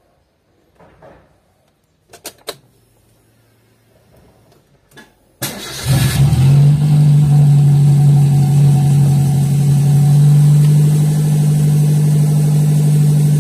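Car petrol engine started: a few ignition-key clicks, then at about five seconds in a short crank and the engine catches at once and settles into a steady fast idle. It is the first start after a new oxygen sensor was fitted to cure rough running at low rpm.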